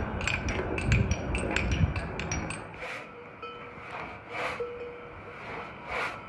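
Quick, sharp metallic taps of hand tools working stone, several a second. After about three seconds they give way to dull chopping strokes about every second and a half, a timber beam being hewn with a long-handled blade.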